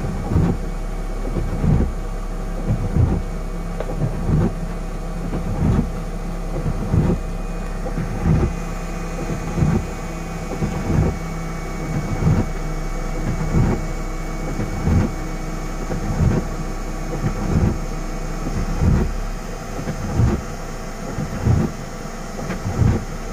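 Rain on a stationary vehicle with its engine running, and the windscreen wipers thumping at each sweep, about once every second and a half, steady throughout.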